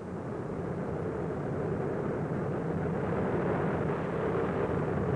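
Steady engine drone of an aircraft, as heard from on board, slowly growing louder.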